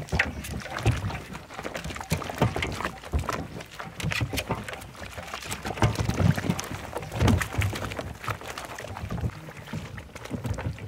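Soapy water sloshing and splashing as green coconuts are scrubbed and turned by hand in a large basin, with irregular knocks and thuds.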